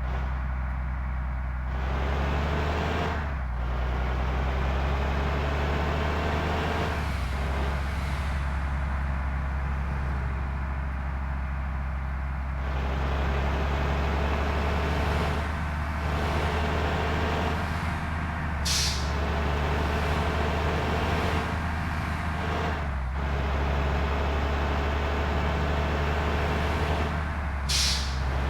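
Intercity bus's diesel engine running steadily in slow traffic, with two short hisses of the air brakes, about two-thirds of the way in and again near the end.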